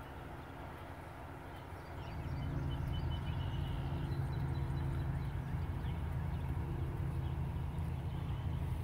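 A low, steady engine-like hum that gets louder about two seconds in.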